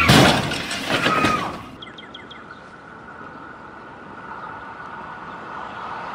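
A wooden shed dropped from a raised forklift smashes onto the pavement, with a second crash about a second later. After that comes a quieter, steady sound of an approaching passenger train, with a held tone, growing louder toward the end.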